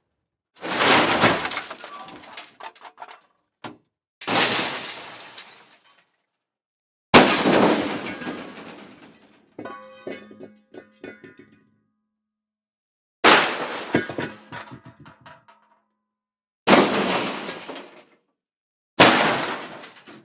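A series of six separate car-crash sound effects, each a sudden smash of crunching metal and breaking glass that trails off into scattering debris, with silent gaps between. After the third crash, pieces keep clinking and ringing for a couple of seconds.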